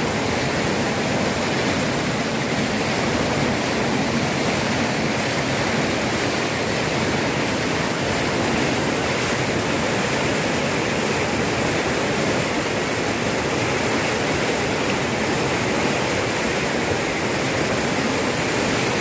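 Floodwater rushing past in a steady, loud, unbroken torrent.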